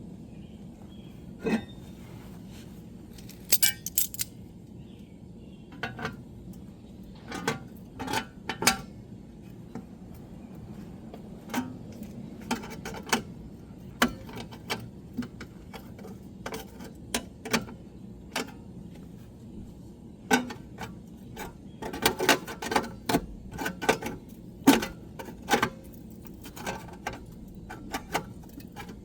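Irregular sharp metallic clicks and clinks of hand tools against metal car parts, some single and some in quick clusters, busiest about two-thirds of the way through.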